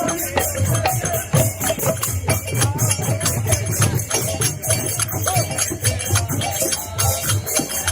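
Devotional kirtan music: jhanjh hand cymbals clash in a fast, steady beat over mridang drums.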